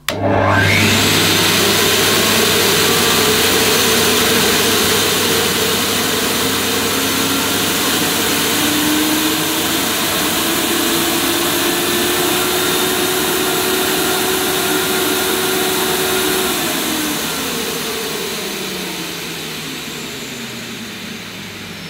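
Hoover Sensotronic System 3's 1,000-watt vacuum motor starting up, with the hose sealed by a suction gauge. It spins up quickly, then rises gradually in pitch as the electronic power control is stepped up from setting 1 toward 5. Near the end it drops in pitch and winds down.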